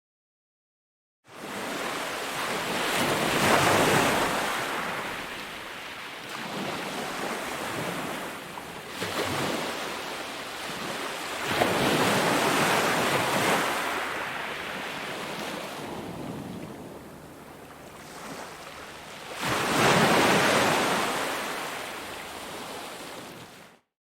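Ocean surf: waves breaking and washing in, swelling and ebbing every several seconds, with three louder surges. It comes in out of silence about a second in and cuts off abruptly just before the end.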